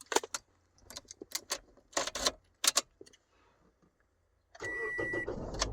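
Keys jangling and clicking as the new transponder key goes into the 2010 Toyota Yaris's ignition and is turned. About four and a half seconds in, the starter cranks the engine while a high warning chime beeps on and off.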